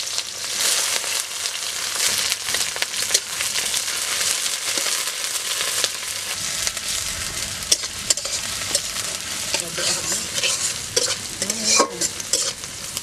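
Sliced onions and dried red chillies sizzling in hot oil in a kadai, with a metal spatula scraping and knocking against the pan as they are stirred. The scrapes and knocks come more often in the second half.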